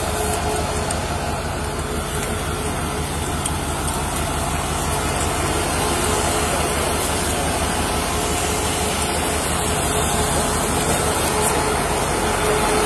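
Ambulance engine idling close by, a steady rumble with a faint steady hum.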